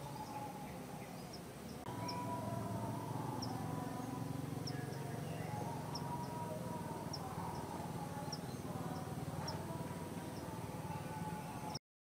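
Outdoor ambience: a short high chirp repeating about once a second over a steady low hum and wavering middle tones. The sound cuts out suddenly near the end.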